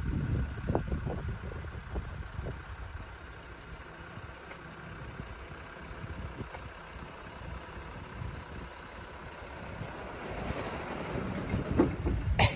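Jeep engine running slowly as it crawls off-road, with wind gusting on the microphone for the first couple of seconds. The engine grows louder about ten seconds in, and a few knocks come near the end.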